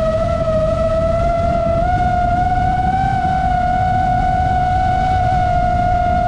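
FPV quadcopter's motors and propellers whining in one steady, slightly wavering pitch that steps up a little about two seconds in as the throttle rises, over a low rush of wind and prop wash on the onboard microphone.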